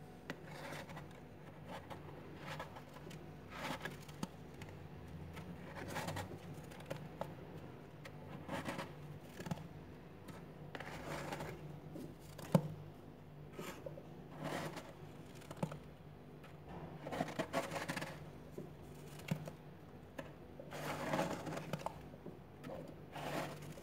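Freezer frost crunching as a hand scoops and squeezes it, in short irregular crunches every second or two over a low steady hum.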